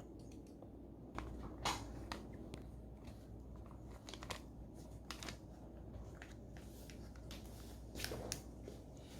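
Faint handling noise: soft rustling with scattered small clicks and taps over a low steady hum.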